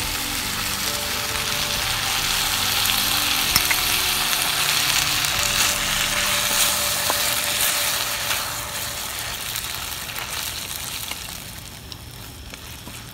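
Coconut milk sizzling in a hot wok of squash and long beans as it is poured in and stirred, with a slotted spatula scraping and clicking against the pan. The sizzle fades away over the last few seconds as the milk settles.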